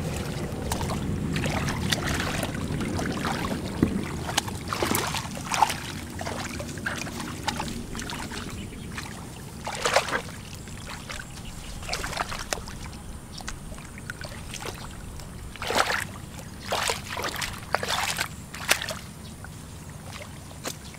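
Intermittent splashing and sloshing of shallow muddy water as hands grope through a flooded rice-field puddle for fish. A low steady rumble fills the first few seconds, then single splashes come at irregular intervals, with a cluster of them near the end.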